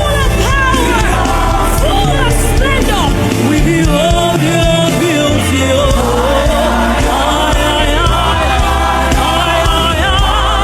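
Live gospel worship music: a band with sustained keyboard and bass under wordless singing and a choir, the bass dropping out briefly in the middle.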